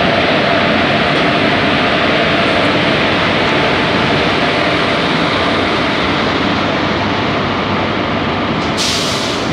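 WAP-4 electric locomotive pulling away from a platform: a loud, steady running noise of the locomotive and its wheels on the rails. A sudden burst of hiss comes in near the end.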